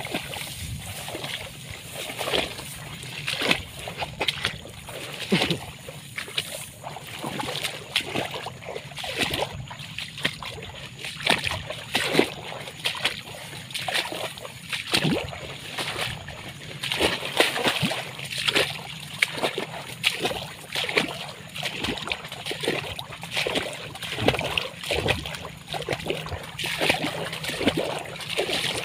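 Water splashing and sloshing in a steady run of strokes, roughly one or two a second.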